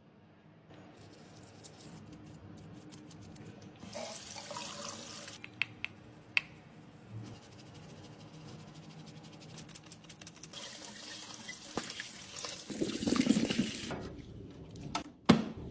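Water running and splashing as ornate makeup cases are washed, with a few sharp clicks and taps. It is louder about four seconds in and again from about ten to fourteen seconds.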